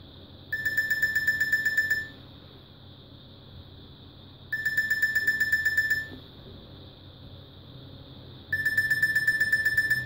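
Nokia 5200 mobile phone's alarm clock tone: a rapid string of high beeps lasting about a second and a half, repeated three times, every four seconds.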